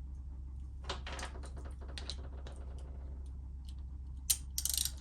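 Light, irregular clicking and tapping of small metal parts and tools being handled while a part is taken back off a motorcycle cam chest, with a sharper click a little past four seconds in and a brief rustle near the end.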